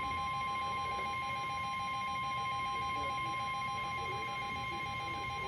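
NOAA Weather Radio's 1050 Hz warning alarm tone, a steady high-pitched tone that signals a warning broadcast is about to follow. It sounds together with a lower, rapidly pulsing alert beep from a weather radio receiver.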